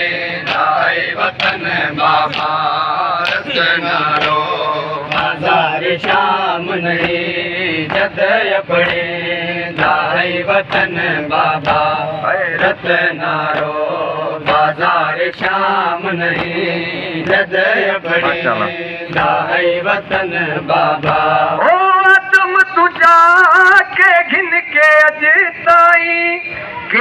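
A Shia noha (mourning lament) chanted by a group of male mourners, with the steady rhythmic slaps of hands beating on chests (matam) keeping time. About 22 seconds in, the chorus and slaps give way to a single male reciter singing the next verse loudly through a microphone.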